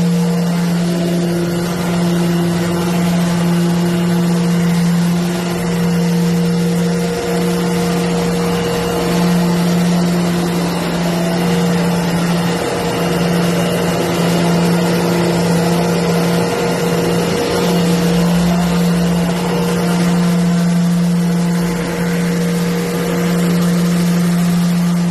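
Electric random-orbital sander running together with a shop vacuum: a steady motor hum with an even rush of air, holding constant with only slight wavering.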